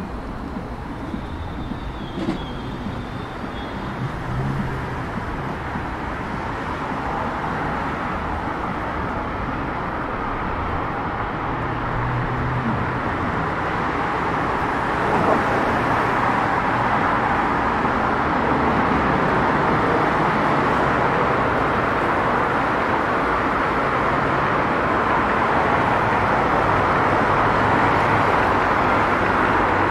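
Road traffic on a busy multi-lane city street: a steady rush of passing cars that grows gradually louder.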